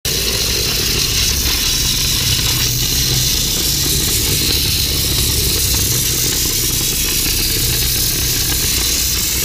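Monair steam cleaner's jet hissing steadily as the wand blasts a motorcycle drive chain clean, with a steady low engine drone underneath.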